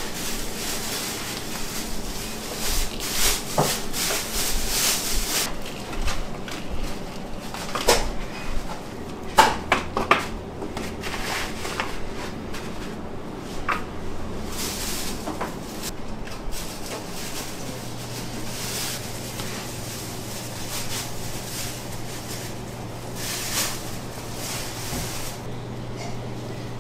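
Bakery work sounds: scattered clatter, knocks and rubbing of trays and utensils, busiest in the first half. A steady low hum comes on about two-thirds of the way in.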